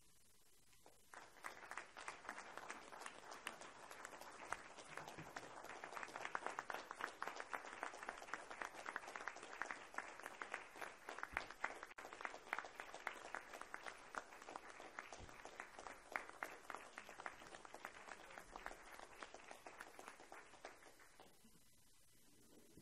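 Applause from a roomful of people: it starts about a second in, builds over the next few seconds, and dies away shortly before the end.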